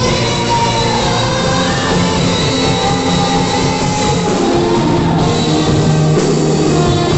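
Saxophone playing a worship melody live in long held notes, over a band backing.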